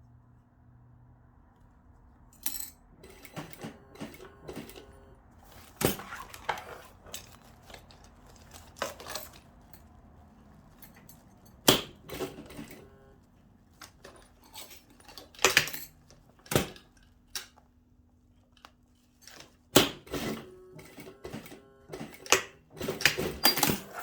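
Heavy-duty handbag zip being worked by hand: irregular small clicks and clinks of the slider and zip parts being handled and pushed together, with a few louder snaps.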